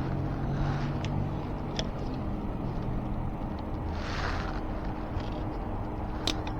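A few small sharp clicks of a hand tool working a loose spoke nipple back into an e-bike wheel rim, over a steady low background hum. There is a short hiss about four seconds in.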